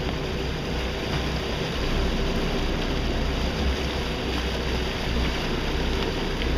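Steady low rumble of a sportfishing boat's engine, under wind and sea noise.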